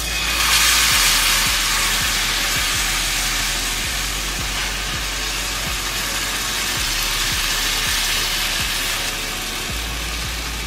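Spinach-semolina chilla batter sizzling on a hot nonstick tawa greased with ghee, as it is ladled on and spread into a round. The sizzle sets in at once, is loudest about a second in, and then settles to a steady hiss.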